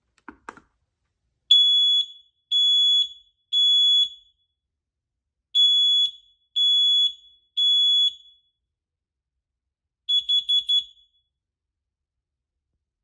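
HATHEPHS smoke and carbon monoxide combo alarm beeping on one high tone in the three-beep smoke-alarm pattern: two sets of three long beeps, then a quick run of about six short beeps near the end. A couple of faint clicks come at the very start.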